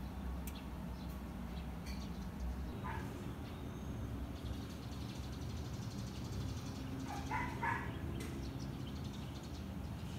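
Steady low background rumble of ambient outdoor noise, with brief distant animal calls: a short one about three seconds in and a few more around eight seconds in.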